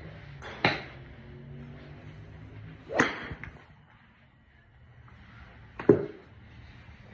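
Three sharp cracks of golf clubs striking balls, roughly two and a half to three seconds apart. The loudest comes near the end. The middle one is a driver hitting a ball off a range mat.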